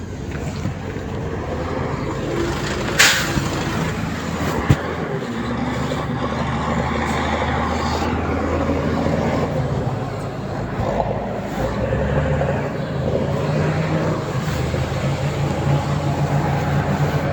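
Heavy construction machine's engine running steadily, with a brief sharp sound about three seconds in and a short knock a couple of seconds later.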